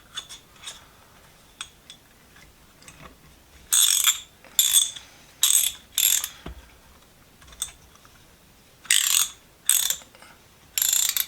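Freshly cleaned and oiled SK ratchet wrench being cycled by hand: seven short runs of rapid pawl clicking, four from a few seconds in and three more near the end.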